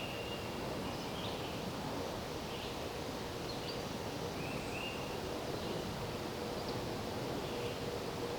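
Steady rustle of wind through leaves, with short bird chirps scattered throughout.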